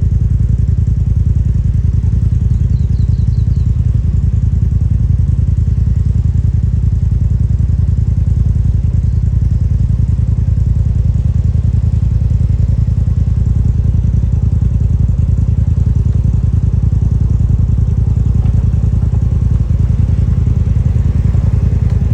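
Polaris RZR side-by-side engine running steadily while under way, a loud, even low drone with no change in pace.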